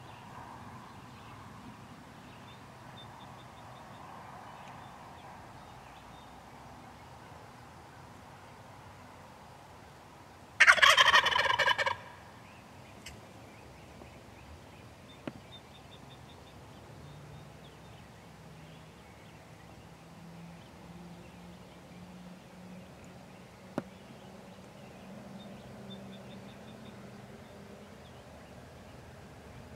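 Wild turkey gobbler gobbling once, about eleven seconds in: a loud, rapid rattling call lasting just over a second. Otherwise only faint background, with a couple of tiny clicks.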